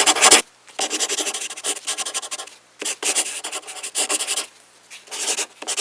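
Scratchy rubbing noise in bursts: a short one at the start, then three longer ones of a second or more each, with brief pauses between.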